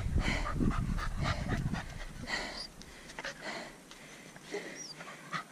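Brittany spaniel panting in quick short breaths, louder for the first couple of seconds and then fainter.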